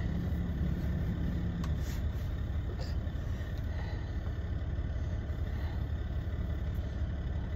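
Steady low rumble of a semi-truck's diesel engine idling, heard from inside the sleeper cab.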